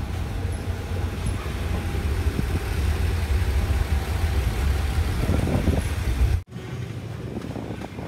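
Low, steady rumble of a moving vehicle. About six and a half seconds in it cuts off abruptly and a quieter rumble follows.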